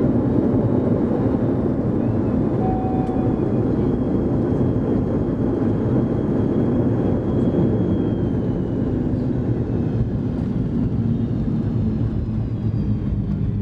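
Cabin noise of a McDonnell Douglas MD-82 rolling on the ground after landing: a steady, loud rumble from its tail-mounted Pratt & Whitney JT8D turbofans and the airflow. A faint high whine drops in pitch about halfway through.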